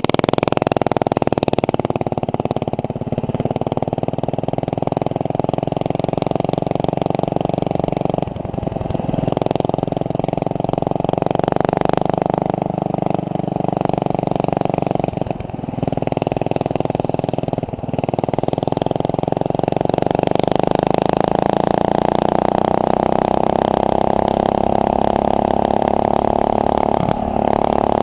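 Mini bike's 190cc overhead-cam 6 hp single-cylinder engine running through a straight pipe, held fairly steady. A few brief dips come about 8, 15 and 18 seconds in.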